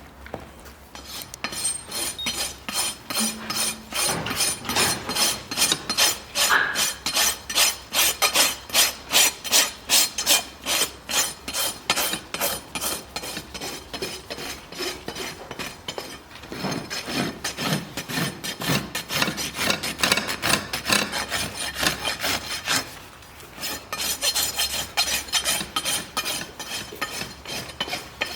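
Farrier's hoof rasp filing a horse's hoof in steady repeated strokes, about two or three a second, with a brief pause about three-quarters of the way through.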